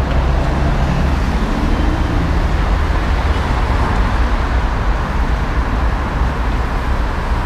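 Busy road traffic: a steady rush of passing cars, with a bus engine running low close by during the first few seconds.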